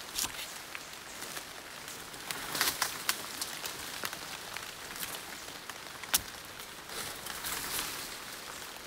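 Rain falling on jungle foliage: a steady hiss with scattered drip-like ticks, and one sharper click about six seconds in.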